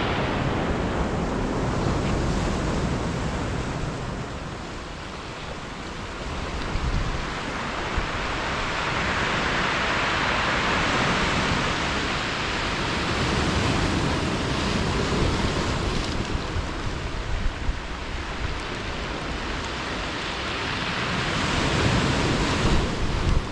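Sea surf breaking on the shore with strong, gusting storm wind buffeting the microphone; the surf surges louder about ten seconds in.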